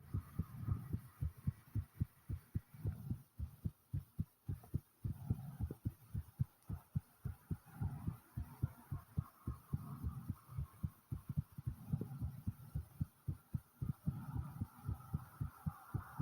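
A person's own heartbeat, fast and pounding hard, recorded close up as rapid, regular deep thumps. The raised rate follows exertion: she has just walked back from the store.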